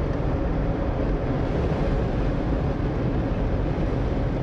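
Steady rumble of a vehicle driving on a gravel road, heard from inside the cabin: tyre and engine noise with no sudden events.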